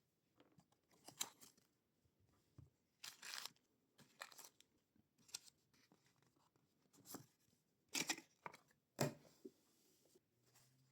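Packaging of a set of in-ear monitors being opened by hand: a series of about eight short, separate handling noises with pauses between, the loudest near the end.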